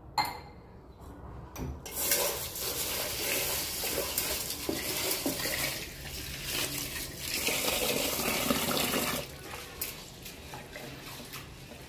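Water running and splashing into an aluminium pot of raw rice at a steel kitchen sink as a hand swirls the grains to wash them, with the pot clanking against the sink. A sharp clank comes just after the start; the water is loud from about two seconds in to about nine seconds, then gives way to quieter swishing and small knocks.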